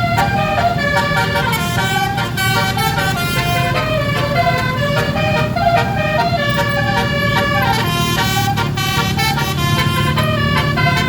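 Bus basuri ('telolet') multi-tone musical horn playing a tune, a quick run of held notes, over a steady low engine rumble.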